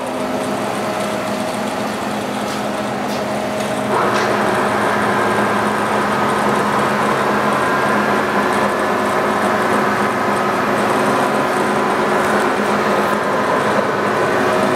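Large TOS SU125 engine lathe running under power, a steady mechanical hum with gear whine from the headstock. A click right at the start, and about four seconds in the sound gets louder with extra higher gear tones, then holds steady.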